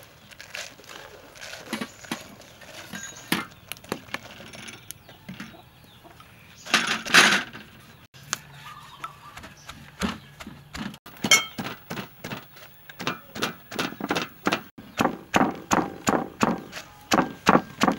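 Small chili peppers being tipped by hand into a wooden mortar, with scattered knocks and a loud rustling rush about seven seconds in. In the second half a wooden pestle starts pounding the chilies in a steady beat of about two strokes a second.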